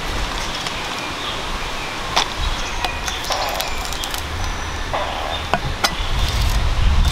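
A cleaver strikes a thick wooden chopping board in a handful of sharp, separate knocks as it trims the root ends off a bunch of green onions. Between the strikes there are short rustles of the onions being handled on the board.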